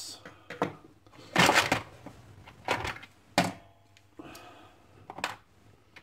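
Hard tools knocking and clattering against each other as a toolbox is rummaged through for a Phillips screwdriver: about five sharp knocks, the loudest a short rattle about a second and a half in.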